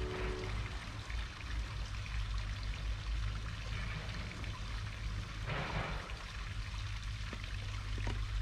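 Running water, a steady trickling rush like a small stream or pouring water, with a brief louder surge a little past halfway. Soft music tones fade out right at the start.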